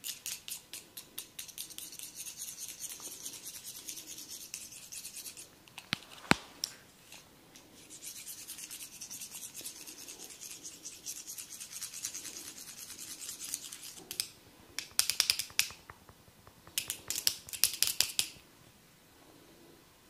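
Two thin metal rods rubbed quickly back and forth against the hair and scalp, making a rapid, even, crackly scratching. There is a single sharp click about six seconds in, and the scratching comes back in louder short bursts near the end.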